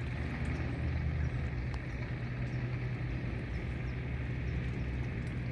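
Steady low rumble of outdoor background noise with a faint hiss above it, unchanging throughout.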